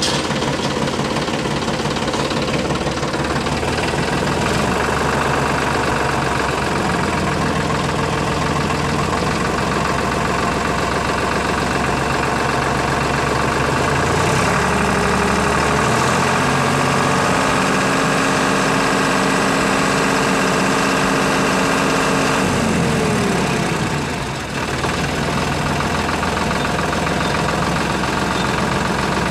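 Diesel engine idling with a steady knocking beat; about halfway through its pitch climbs, holds for several seconds, then drops back.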